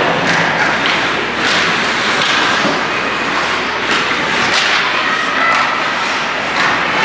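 Youth ice hockey play: sticks and the puck knocking sharply at irregular moments over a steady wash of skate and rink noise.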